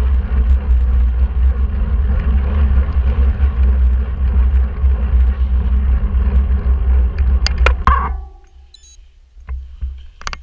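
Wind rumbling on the microphone with tyre noise from a mountain bike riding along a road. It drops off suddenly about eight seconds in, leaving a quieter stretch with a few sharp clicks.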